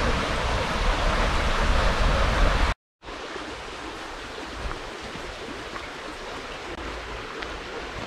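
Steady rush of a stream's flowing water, loud for the first three seconds, then cutting out suddenly and coming back quieter and steady.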